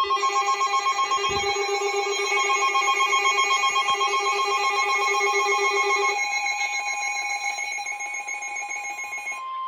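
Weather-radio emergency alert alarm: a loud electronic tone of several pitches pulsing about four times a second. Its lowest pitch drops out about six seconds in, and near the end it settles toward a single steady high tone. It signals a severe thunderstorm warning.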